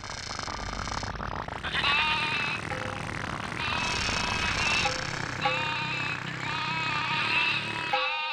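Baaing: a run of wavering, bleat-like calls, one after another, over a steady low drone that cuts off near the end.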